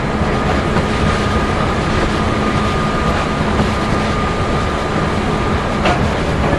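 Running noise inside a JR 213 series electric train's motor car (KuMoHa 213-3) on the move: a steady rumble of wheels on rail with a constant high whine and low hum. There is a single sharp click about six seconds in.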